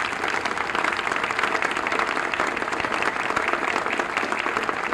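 Audience applauding steadily, a dense patter of many hands clapping, welcoming a speaker to the podium.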